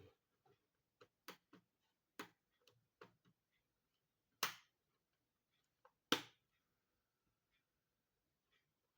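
Laptop's plastic casing and parts being handled and pressed into place: a string of sharp clicks and taps, with two louder snaps about four and a half and six seconds in.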